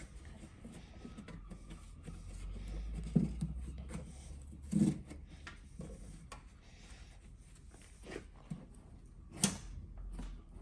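Scattered light knocks and rubbing as a rope is pulled tight and hooked onto a metal U-shaped rope hook, with canvas being handled; the clearest knocks come a little after 3 s, near 5 s and near 9.5 s, over a steady low hum.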